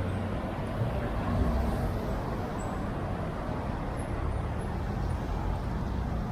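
Car cruising at steady speed: a steady low exhaust and engine rumble with tyre and road noise, from a Toyota Vios with a 2ZZ-GE 1.8-litre inline-four breathing through a Kakimoto Regu 06&R muffler.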